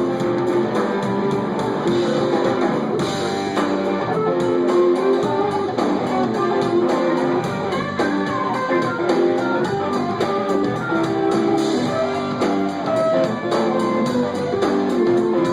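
A live band playing an instrumental passage led by guitar, with bass underneath.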